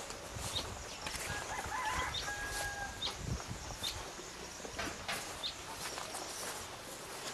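A rooster crowing once, starting about a second in and lasting under two seconds, over outdoor background with short high chirps.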